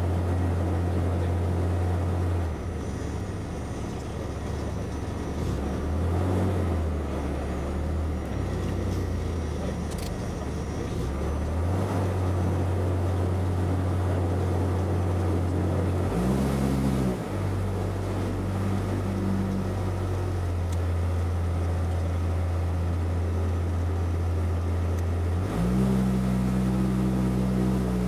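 Piper PA-38 Tomahawk's four-cylinder Lycoming engine heard from inside the cabin, running steadily at low power with a brief rise in pitch about two-thirds of the way through. Near the end the note steps up higher and louder as the throttle is opened for the takeoff roll.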